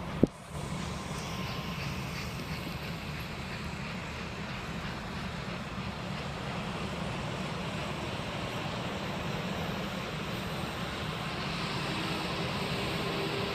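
A train running with a steady low rumble, after a sharp click right at the start; a steady hum joins near the end.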